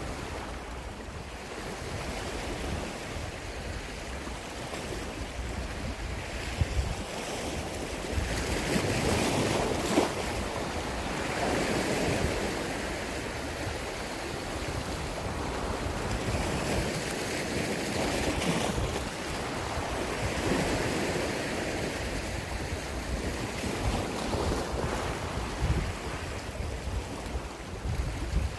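Sea waves washing against the shore, swelling and fading every few seconds, with wind buffeting the microphone.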